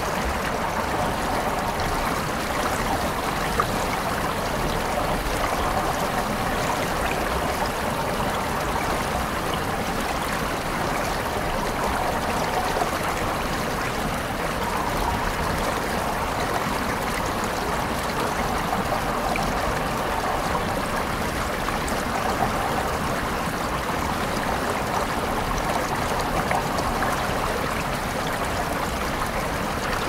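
A small rocky stream running fast over stones and breaking into white water: a steady, even rush of water with no changes.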